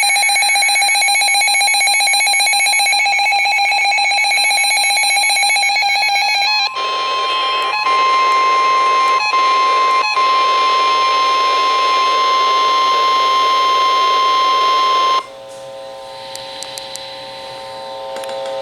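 Emergency alert tones for a tornado warning. First comes a rapidly pulsing electronic alarm for about six and a half seconds. Then a steady single tone, the 1050 Hz NOAA Weather Radio warning tone, holds for about eight seconds and cuts off sharply, and a much quieter stretch of faint steady tones follows.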